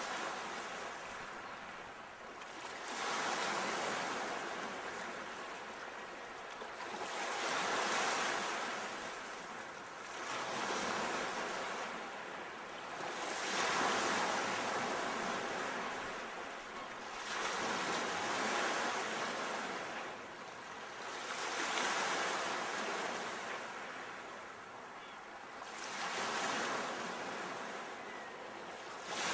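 Sea waves surging and falling back in a steady rhythm, a new wave swelling every three to four seconds, with no music.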